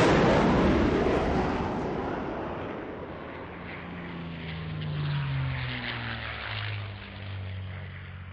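Propeller aircraft flying past: a loud rush at the start fades over a few seconds. The engine note then falls in pitch and settles into a steady low drone near the end.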